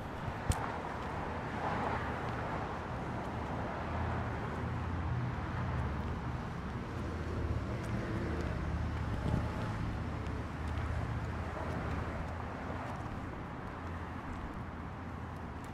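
Outdoor urban ambience: a steady low rumble of distant road traffic that swells for several seconds in the middle and then eases, with one sharp click about half a second in.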